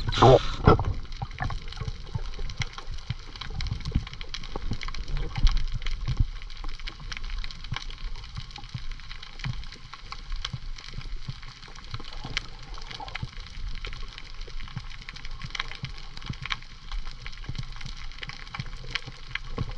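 Water gurgling and sloshing around a camera in the sea during a snorkel dive, with a low rumble and many scattered clicks and crackles. A brief falling swoosh comes right at the start.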